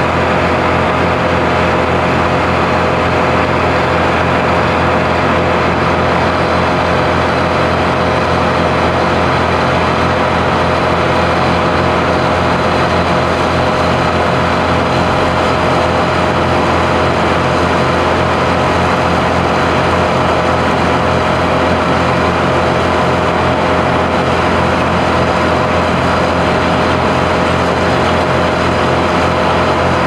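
Heavy engine running steadily at constant speed, an unbroken hum of even pitch and level.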